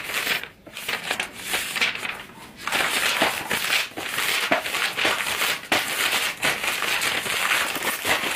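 Paper book pages rustling as they are flipped, then from about three seconds in a steady, dense crinkling and crumpling as the pages are bunched up and handled roughly.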